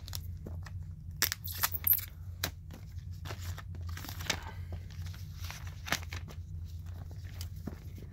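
An iPhone X being handled in its cardboard box and lifted out: a run of short scrapes, clicks and crinkles, loudest about a second in, over a steady low hum.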